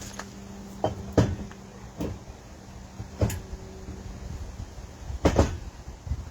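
Sharp metallic knocks and clanks of tools and parts during work on an 18 hp Briggs & Stratton engine's flywheel, about five of them spread over six seconds, the loudest pair near the end. A faint steady hum sounds under the first few seconds.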